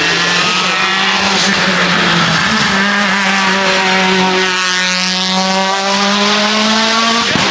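A car engine running hard at steady high revs, its higher notes sweeping in pitch midway, then cutting off suddenly near the end.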